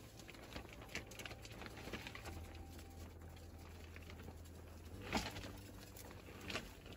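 Wood fire burning in a Pomoly tent stove, crackling faintly with sparse small ticks and pops, and two louder sharp noises about five and six and a half seconds in.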